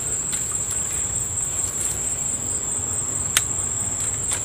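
Steady high-pitched chorus of insects, with one sharp click about three and a half seconds in.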